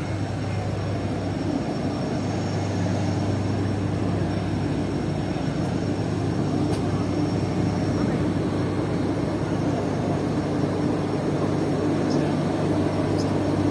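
Steady low hum of a ship's engines and machinery on an offshore vessel, with a constant rushing noise of wind across the open deck.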